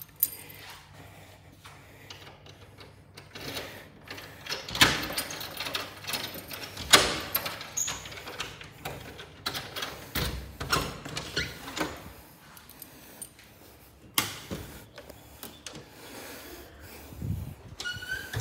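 Keys jangling and a lever-handle door lock clicking and rattling as a key is worked in the lock. A string of sharp clicks, the loudest about five and seven seconds in.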